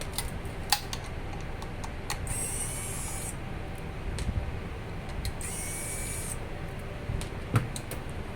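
Small electric screwdriver backing out the screws of a laptop hard-drive bracket. Its motor whirs in three runs of about a second each, with light metallic clicks of screws and parts in between.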